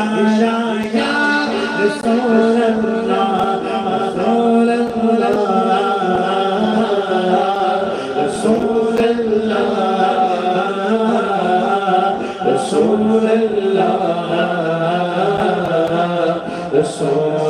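A man's voice chanting an Urdu naat into a microphone in long, drawn-out melodic phrases, over a steady low held note.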